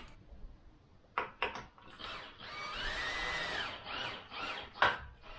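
Cordless drill driving a screw into a two-by-four: a few short trigger bursts, then a run of about two seconds with the motor whine rising and falling, then more short bursts and a sharp knock near the end.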